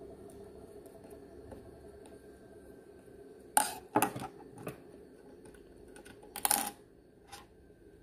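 Sharp metallic clinks of a screwdriver and small steel parts against an industrial sewing machine's needle plate, a pair about halfway through and another near the end, over a faint steady hum.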